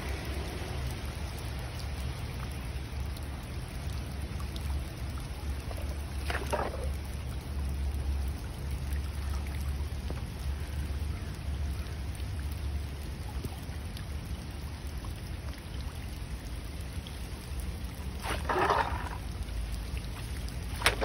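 Floodwater rushing steadily down a storm drain freed of leaf debris, swirling as it empties. Three times a louder swish of the rake dragging through the water and wet leaves breaks in.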